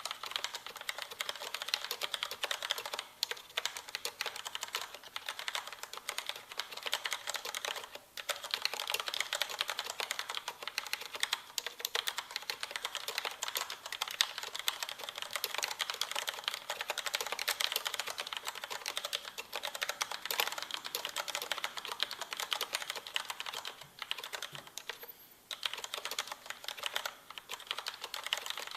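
Continuous typing on a Corsair Vengeance K90 mechanical keyboard with Cherry MX Red switches: a dense, fast clatter of key presses, broken by a few brief pauses.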